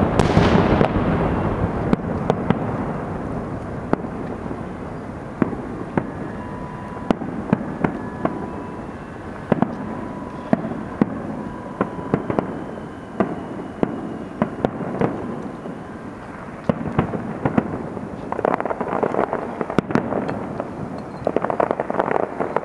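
Fireworks display: many sharp bangs of bursting shells over a continuous crackling rumble. The bangs are heaviest at the start and again near the end, and faint steady whistles sound in the middle stretch.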